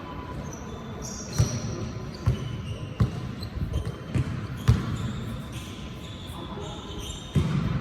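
Basketball bouncing on a court: a string of sharp thumps at uneven intervals, roughly a second apart, as the ball is dribbled.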